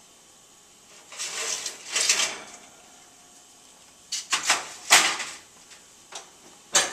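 A metal baking tray lined with foil is slid out of an oven with a scraping rustle. About four seconds in, several metal clanks follow as the tray is set down on a gas stove's grates. Near the end comes one sharp knock as the oven door is shut.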